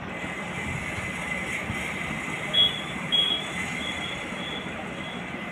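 Combine harvester engine running steadily, with the tractor alongside, just as the unloading of paddy into the trolley finishes. From about halfway in, a run of short high-pitched peeps comes about twice a second.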